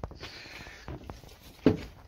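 Rustling, small knocks and footsteps as someone climbs out of a van onto the road, with one sharp thump about one and a half seconds in.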